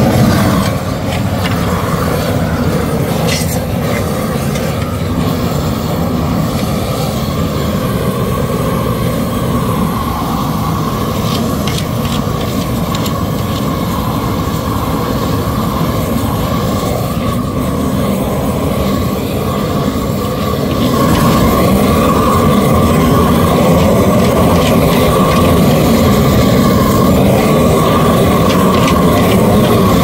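Long-handled propane torch burning steadily, its flame playing over freshly laid asphalt to heat it. It grows louder about 21 seconds in.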